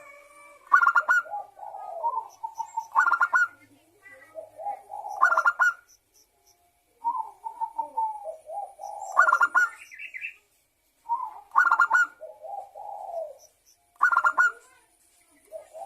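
Zebra dove (perkutut) cooing its staccato song. Phrases of rolling, trilled coos alternate with sharper, louder notes and repeat about six times, every two to three seconds. Faint high chirps sound in the background.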